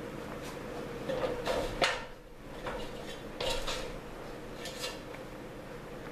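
Light metallic clinks and rattles of a screwdriver and small hand tools being handled, in three short bursts.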